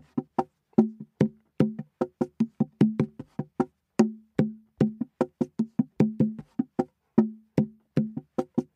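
Hand percussion played as a musical interlude: short, pitched wooden-sounding knocks at about four a second in an uneven, driving rhythm.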